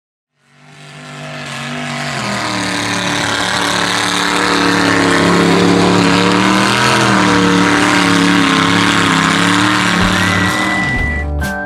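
Mud truck engine revving hard and steadily as it ploughs through a mud pit, its pitch wavering up and down. It fades in at the start. Near the end, music with a beat and a whistled note comes in.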